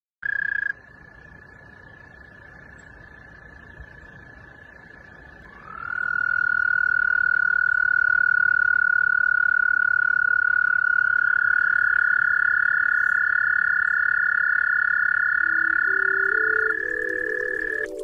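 Steady, high-pitched frog-call tones held as an unbroken drone. One tone runs throughout after a short louder blip at the very start; a second slides up and joins about six seconds in, and soft notes rise in steps near the end.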